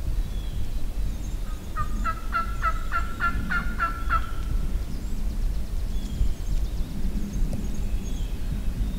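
A wild turkey calling: a quick run of about ten evenly spaced notes lasting about two and a half seconds, over a steady low rumble.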